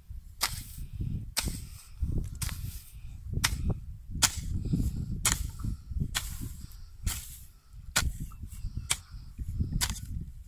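A wooden-handled hoe chopping into grassy soil, one sharp strike about once a second.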